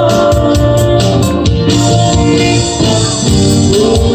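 Live band music in a short instrumental gap between sung lines: a held melody over bass and a steady cymbal beat.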